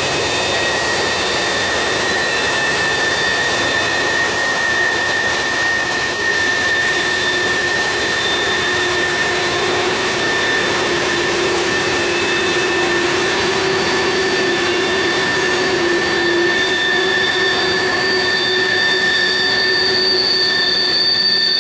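Freight cars (covered hoppers, boxcars and tank cars) rolling steadily past. Their wheel flanges squeal against the rail in several high, steady tones that swell and fade as the wheels take the tight Horseshoe Curve.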